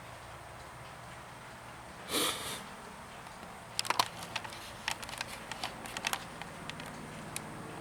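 A short sniff, then a scatter of light clicks and taps over the next few seconds.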